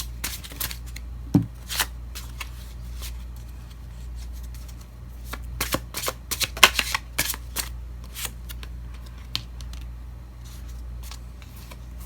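Tarot deck being shuffled by hand: quick flurries of cards snapping and riffling against each other, with a dense burst about halfway through and sparser slides and taps near the end.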